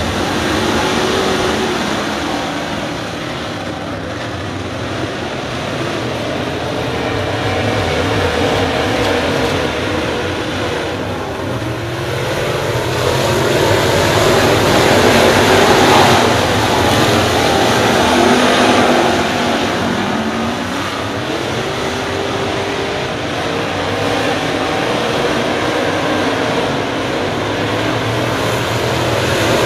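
A field of dirt late model race cars running around the track, their V8 engines blending into one continuous noise. The sound swells as the pack comes by, loudest about halfway through, then eases off.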